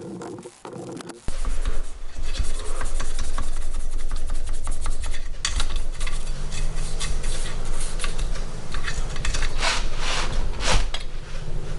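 A power tool driving a wire wheel starts about a second in and runs with a steady hum, the wheel scrubbing against metal with a rasping, scraping sound.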